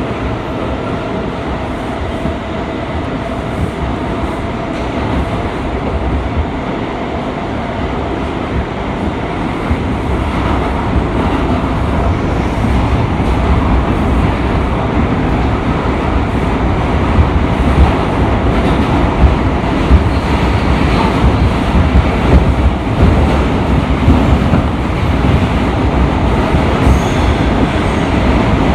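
Bombardier R179 subway train, with Bombardier MITRAC IGBT-VVVF AC traction motors, running between stations: a continuous rumble of wheels on rail with a faint steady tone early on, growing louder from about a third of the way in, with sharper peaks in the middle of the run.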